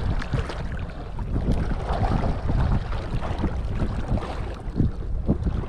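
Wind rumbling on the microphone over seawater washing around shoreline rocks.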